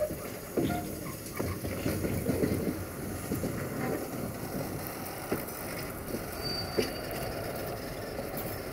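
Container-laden flat wagons of a freight train rolling slowly along the track: a steady rumble of wheels on rail with irregular clicks and clanks.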